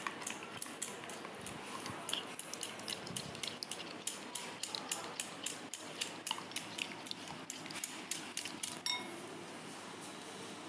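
Red plastic spoon beating curd in a glass bowl: a quick run of small clicks and taps against the glass, a few a second, that stops about nine seconds in.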